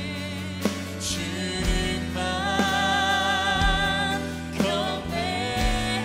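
Contemporary worship song in Korean: a woman singing the lead into a microphone over a band with a steady bass and drum hits.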